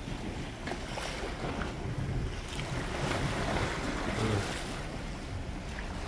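Ocean waves washing against granite boulders, with wind buffeting the microphone as a low rumble.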